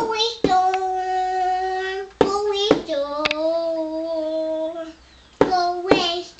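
A young child singing a string of long, drawn-out notes with no clear words, broken by a few sharp taps or knocks between notes.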